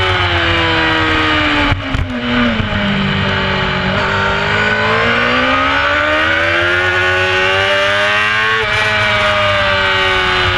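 Carburetted 600cc inline-four of a Honda CBR600F4 race bike. The revs fall as the rider brakes into a corner, with a quick gearchange about two seconds in, then climb steadily under acceleration out of the corner until an upshift drops them sharply near the end.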